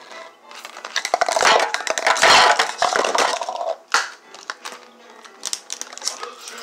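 Thin plastic cups and a plastic tub being handled on a countertop: a dense run of crinkling, clattering and tapping for a few seconds, a sharp click about four seconds in, then lighter scattered clicks.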